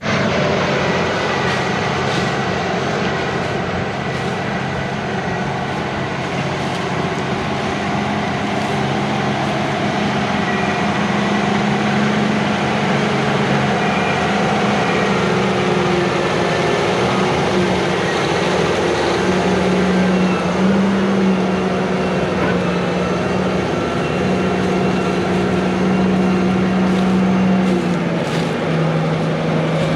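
Heavy farm machinery running steadily, its engine note shifting slightly in pitch now and then.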